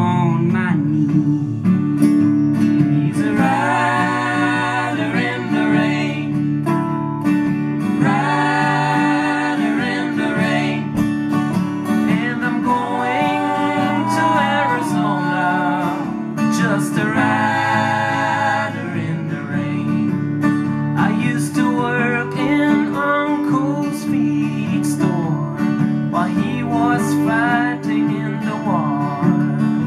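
Live acoustic band: two acoustic guitars strummed under singing voices, a country-style song in phrases of a few seconds each.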